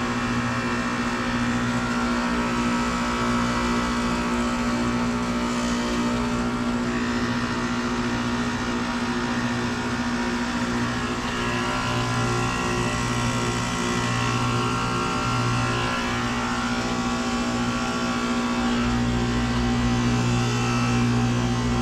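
Outdoor unit of a 2017 SmartComfort 2-ton heat pump running with a steady hum, with a deeper rumble that grows stronger near the end.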